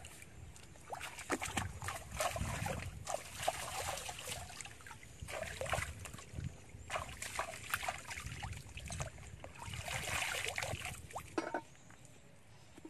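Irregular wet splashing and sloshing in short bursts, dying down near the end.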